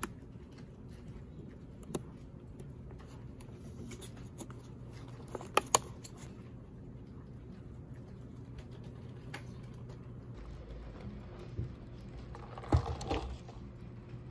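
Scattered clicks and taps from a plastic-lidded takeout box being handled over quiet office room tone: a single click about two seconds in, two sharp clicks close together about five and a half seconds in, and a short cluster of taps near the end.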